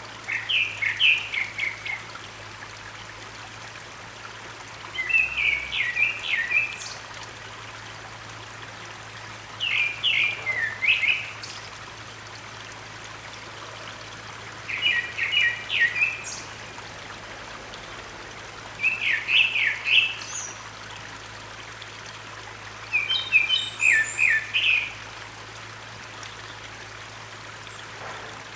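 Grey-backed thrush (Turdus hortulorum) singing short phrases of several quick notes, one about every four to five seconds, six in all. Underneath is the steady rush of a mountain stream.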